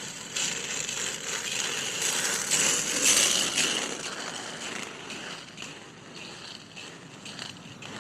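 Roller skate wheels rolling past on a rink floor, with small clicks and rattles. The rolling noise grows to its loudest about three seconds in, then fades away.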